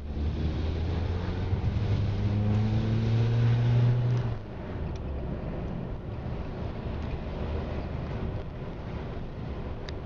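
A motor vehicle's engine running, its pitch rising steadily for about four seconds before cutting off abruptly, then a lower steady rumble, with wind buffeting the microphone.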